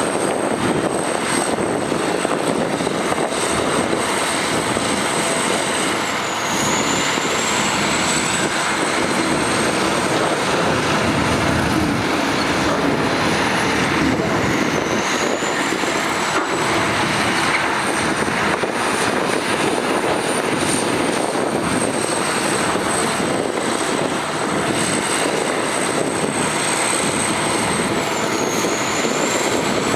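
Heavy diesel earthmoving machinery, likely a bulldozer working soil, running steadily under load. A thin high whine runs over the engine noise and dips briefly in pitch three times.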